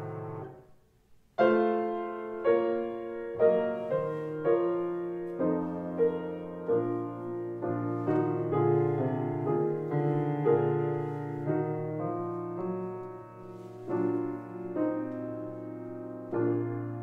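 Slow, gentle piano music. A chord fades out, there is a brief pause about a second in, then a new passage starts with notes struck about once a second.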